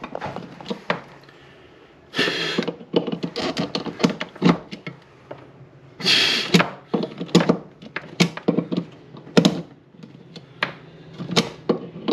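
Clicks and knocks of small hard objects being handled, with a short scraping rustle about two seconds in and again about six seconds in.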